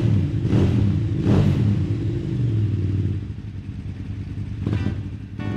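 Motorcycle engine running, with two loud swells about half a second and a second and a half in, then dropping back to a quieter, steadier note; a short rise in pitch comes near the end.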